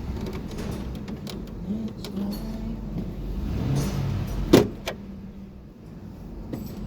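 Ford Grand Marquis 4.6-litre V8 engine running at idle during a cylinder power balance test, misfiring on cylinders 1, 2 and 6. There are scattered small clicks and one sharp, loud knock about four and a half seconds in.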